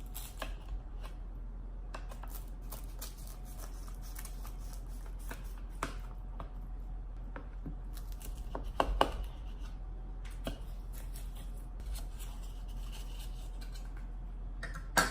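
Knife cutting through a freshly baked, crisp phyllo-pastry potato-and-cheese borek, the layers crunching and crackling in many small clicks. A louder knock comes about nine seconds in and another at the very end.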